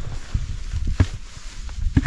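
Camera handling and footsteps on dirt, with sharp clicks about a second in and near the end, the last as the rubber T-latch of a hard cooler is pulled open.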